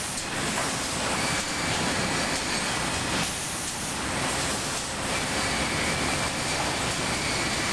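Sawmill edger infeed running: chain transfers and roller conveyors carrying boards toward the edger, a steady dense mechanical noise with a faint high whine.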